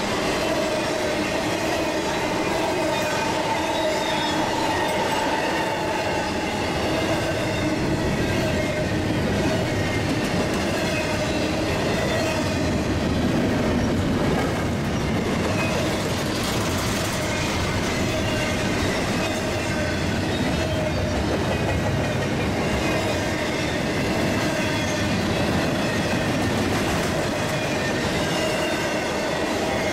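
Intermodal freight train's cars rolling past, loaded with highway trailers and double-stacked containers: a steady rumble and clatter of steel wheels on the rails, with a continuous high squeal from the wheels.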